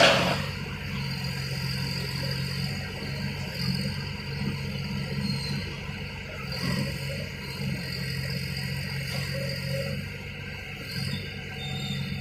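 Small Yanmar diesel engine of a mini excavator running steadily, with a sharp knock at the start and a few fainter clanks.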